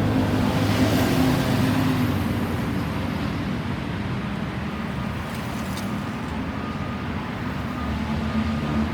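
Road traffic passing: the engine hum and tyre rush of passing vehicles, with a heavier engine hum at the start that comes back near the end. Faint repeated short beeps start near the end.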